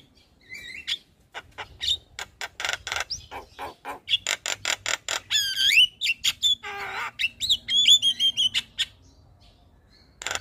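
Javan myna singing: a quick run of short clicking notes, then slurred whistles, a harsh grating squawk and more whistled notes, falling quiet near the end.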